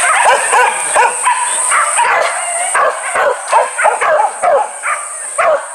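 A pack of hunting dogs yelping and barking in quick, overlapping calls, easing off near the end.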